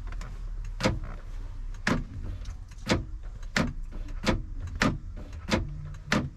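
Replacement door lock actuator on a 2007 Chrysler Town & Country passenger door, locking and unlocking over and over in a quick series of sharp clunks, about eight in a row. The new actuator working is the sign that the old actuator motor was the fault.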